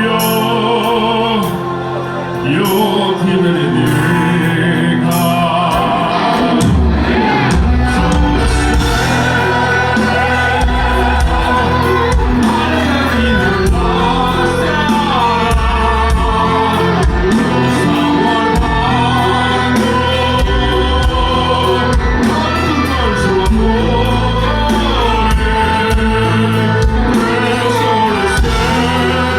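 A male voice singing in operatic style with wide vibrato over a live rock band. The band's low end fills in heavily about seven seconds in.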